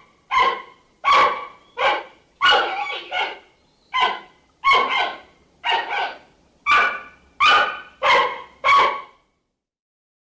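Giant panda giving a rapid series of short, bark-like calls, about one and a half a second, which stop about nine seconds in.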